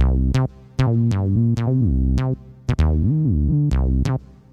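Music: the opening of an instrumental backing track. Synthesizer notes bend up and down in pitch over sharp drum hits, and the music stops briefly three times.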